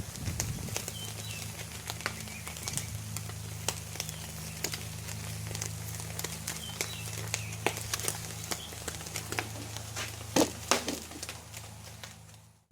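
Irregular crackling and popping from sauced spare ribs cooking over a charcoal barbecue pit, over a steady low hum.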